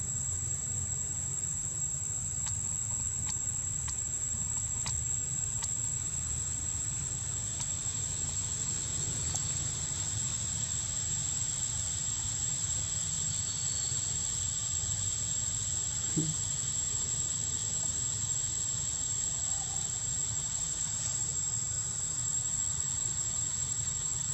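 Steady, high-pitched insect chorus droning without a break, over a low rumble.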